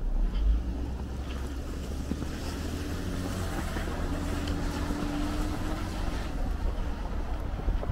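Wind rumbling on the microphone, with a faint steady hum in the middle.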